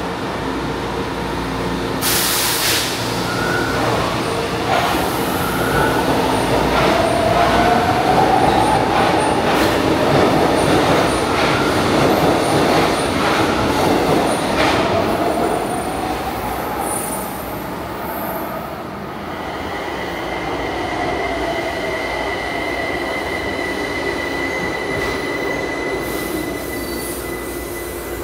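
São Paulo Metro train moving along the platform, with electric motor whine rising and falling in pitch and wheels squealing on the rails. The sound is loudest in the middle, then eases, leaving a steady high whine in the second half.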